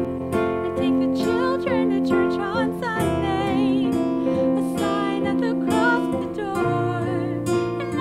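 Digital piano accompaniment with a woman singing over it.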